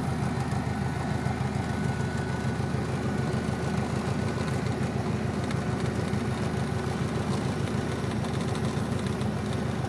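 A light aircraft's engine and propeller heard from inside the cockpit, running steadily at low power while taxiing after landing, with a faint steady high whine over the low, even drone.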